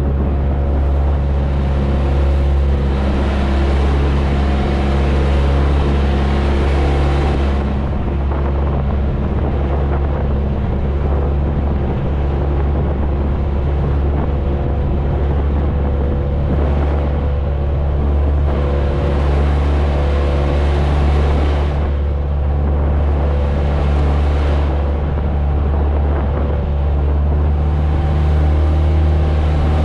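Outrigger boat's inboard engine running steadily at cruising speed, with a hiss of wash and wind that swells and fades several times.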